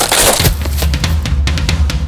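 Soundtrack music: a drum kit comes in with a cymbal crash, then a quick drum beat over a heavy bass line.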